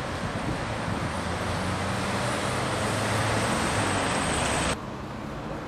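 Street traffic: a motor vehicle's engine and tyre noise rising steadily, then cutting off suddenly near the end.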